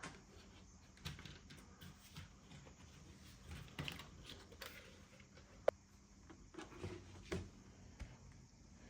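Faint, scattered clicks and knocks of tools and parts being handled, with one sharper click a little under six seconds in.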